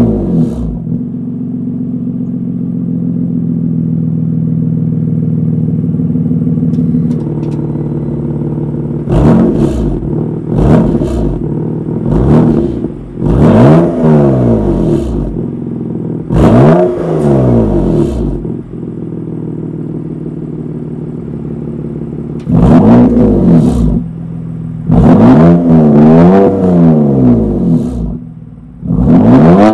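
BMW M2 Competition's twin-turbo straight-six, through a Remus race rear-section exhaust, idling steadily for the first several seconds and then blipped repeatedly, each rev rising sharply in pitch and falling back to idle, with a quick run of blips near the end.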